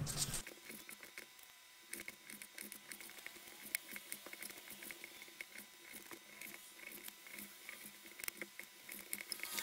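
Kitchen knife cutting raw chicken breast into bite-size pieces on a cutting board: quiet, irregular light taps and clicks as the blade meets the board, several a second.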